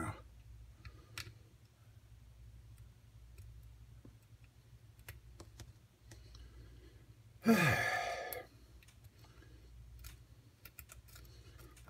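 Faint, scattered clicks of a lock pick working the pins of a pin-tumbler lock held in a deep false set. There is one loud sigh, falling in pitch, about seven and a half seconds in.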